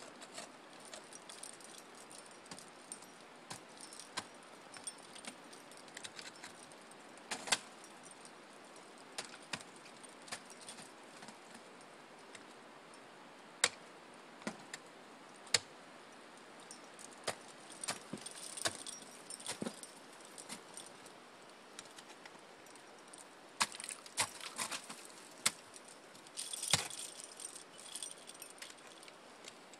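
Ice-climbing gear clinking and jingling: metal carabiners and ice screws on a harness rattling against each other, with sharp irregular ticks from ice axe picks and crampon points striking the ice. The jingling comes in small flurries.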